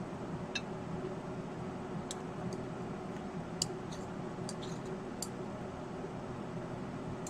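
A steady low hum, with a handful of faint, short, light ticks scattered over it.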